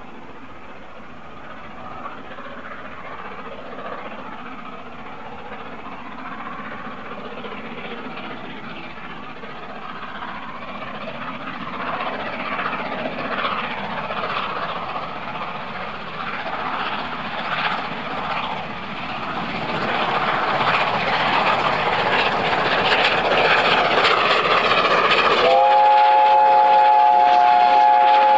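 Steam locomotive approaching under power, its exhaust beats and running noise growing steadily louder. About 25 seconds in it sounds a three-note chime whistle, which starts with a slight rise in pitch and is then held steady.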